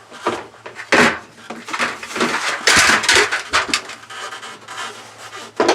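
Irregular scraping, rustling and clattering of hands working wires and plastic parts in a roof vent fan's housing, with a sharp knock about a second in and a short, sharp noise near the end.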